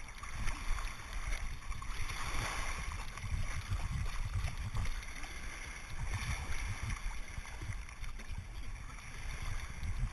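Seawater sloshing and splashing around a camera riding on a swimming dog at the water's surface, in swells every few seconds, over a low rumble of water and wind buffeting the microphone.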